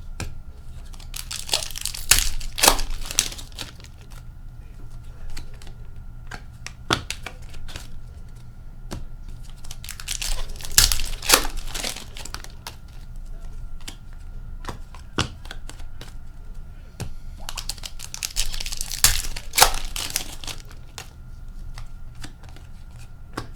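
Hockey card pack wrappers being torn open and crinkled, in three bursts about eight seconds apart, with light clicks of cards being handled in between.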